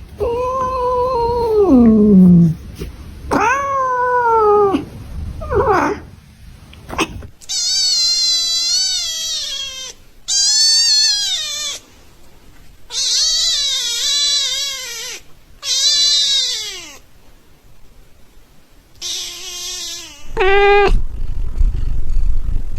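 Domestic cats meowing, about nine separate calls one after another, each a second or two long. The first few are lower and drawn-out with a falling pitch; from about seven seconds in they turn higher-pitched.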